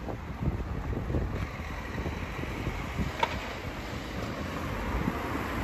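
Wind buffeting the microphone over a steady outdoor rumble, with one short click about three seconds in.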